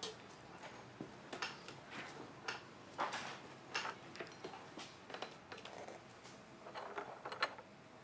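Dry animal bones being handled and set down on a table: light, irregular clicks and knocks, a dozen or so, with soft shuffling between them.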